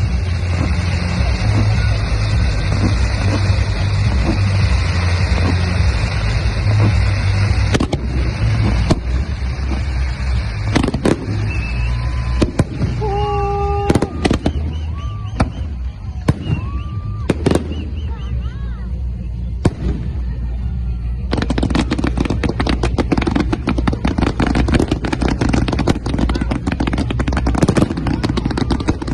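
Fireworks going off: a run of sharp bangs with a few short whistling tones in the middle, then dense continuous crackling for the last third.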